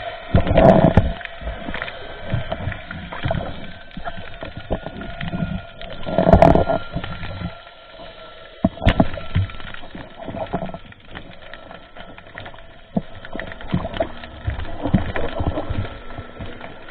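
Water rushing and gurgling around an underwater camera housing as a spearfisher swims up to the surface, with irregular small knocks and clicks. Two louder surges of water noise come near the start and about six seconds in.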